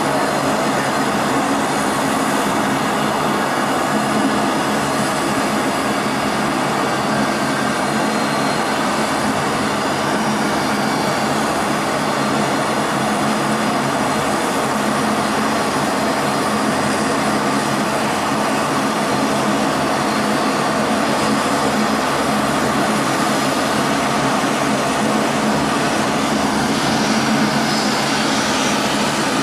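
US Air Force C-17 Globemaster III's four turbofan engines running at taxi power: a steady jet roar with a high whine held throughout.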